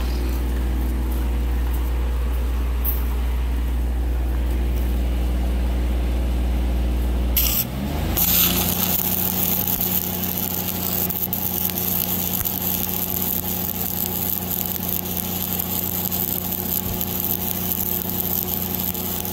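A diesel Lincoln 305D engine-driven welder idles steadily, then revs up to a higher speed about 8 seconds in as an arc is struck. From then on a 7018 1/8-inch stick electrode welds at about 124 amps with a steady crackling hiss, while the engine runs under load.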